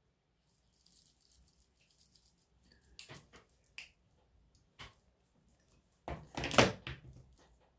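Faint soft swishing of a large make-up brush sweeping over skin, then a few small clicks and, near the end, a louder burst of handling noise about a second long.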